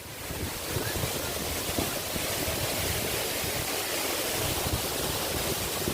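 Waterfall's water pouring down onto rocks, a steady rushing noise that swells over the first half second and then holds.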